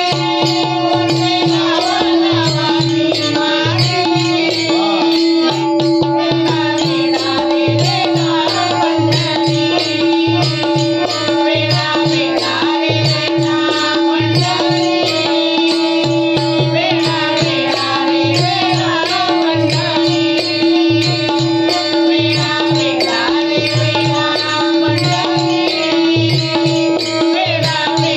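Bhajan group performance: a melody over a steady held drone note, with a hand drum beating a regular rhythm and small cymbals ticking along.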